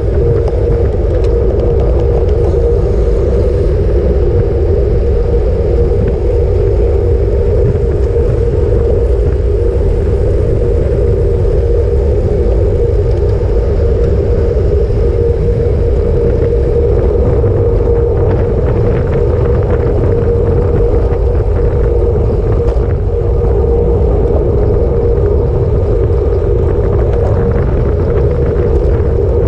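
Steady, loud wind rumble on the microphone of a camera riding on a road bicycle at speed in a group, with a steady drone held at one pitch throughout.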